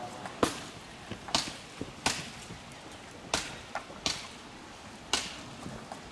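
A series of sharp cracks, about seven in six seconds at uneven spacing, over a low background.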